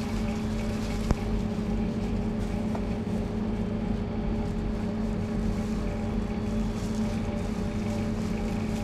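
Steady machinery hum holding one pitch with its overtones, with a single sharp click about a second in.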